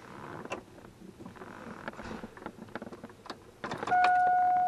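Faint clicks and taps, then, near the end, a steady electronic beep tone starts and holds.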